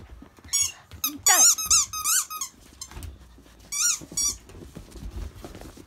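52-day-old Akita puppies giving short, high-pitched yelps and squeals while playing. There is a quick run of several yelps in the first two and a half seconds and two more about four seconds in.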